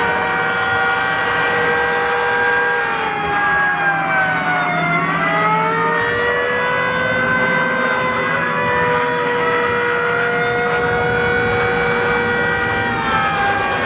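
Recorded air-raid siren sound effect played through a display's speakers: several wailing siren tones held together, sagging in pitch and climbing back about four to six seconds in, then falling again near the end, over a low rumble in the first half.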